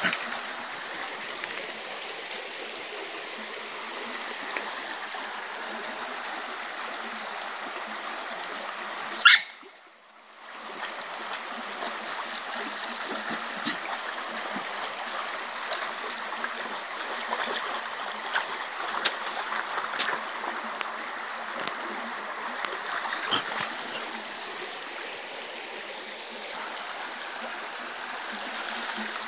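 Shallow, fast-flowing stream rushing steadily over stones, with dogs splashing through the water. About nine seconds in there is one short, loud high-pitched sound, after which the water noise drops out for about a second.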